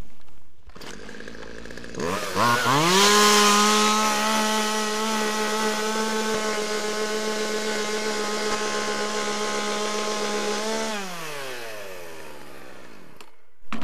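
Two-stroke gasoline chainsaw fires up about two seconds in and revs quickly to full throttle. It runs at a high, steady pitch while cutting through a thick paper phone book, then winds down with a falling pitch near the end.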